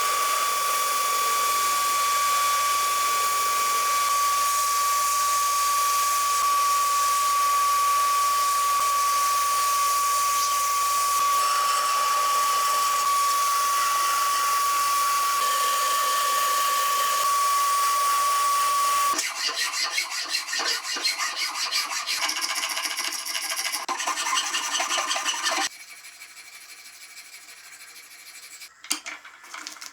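A power tool grinding or sanding, running steadily with a high whine, stops abruptly about two-thirds of the way in. Quick, rhythmic hand strokes of filing or sanding follow for several seconds, then fainter scraping near the end.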